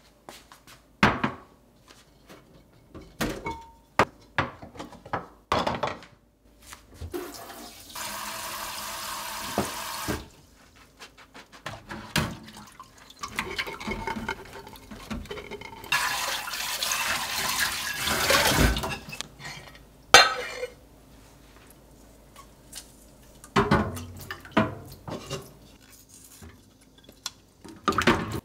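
Kitchen tap water running into a stainless steel sink in two spells, one brief and one longer, and scattered short knocks and clinks of glass food containers and bamboo lids being handled and set down in the sink while they are washed.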